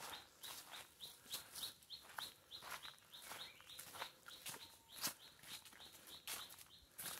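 Footsteps on a dirt forest trail, a few steps a second, with faint high chirps repeating in the background.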